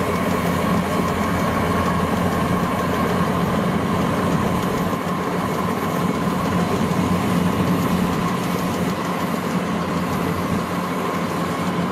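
Kubota rice combine harvester running steadily as it cuts and threshes ripe rice: a constant engine sound with a steady low hum and a steady high tone over it.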